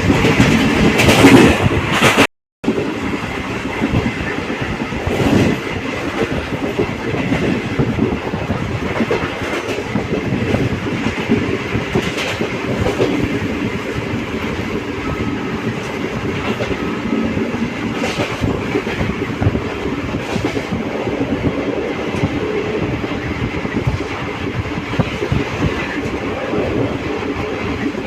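Passenger train running along the track, heard from on board: a steady rumble of the coaches with the clickety-clack of the wheels. The sound drops out for a moment about two seconds in, then carries on.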